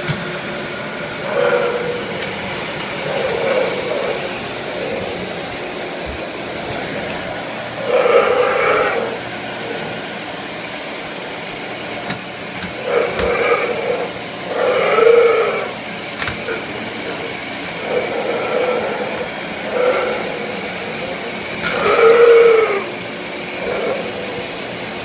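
Pit bull growling in repeated, drawn-out bursts, about ten of them, over the steady drone of a running vacuum cleaner. The growling is playful rather than angry, the dog wanting to play with the vacuum.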